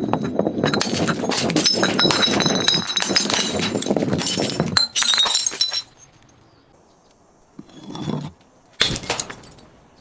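Glass bottle being crushed and shattering: a dense crunching crackle of breaking glass for about five seconds, a shorter burst just after, then two brief crunches near the end.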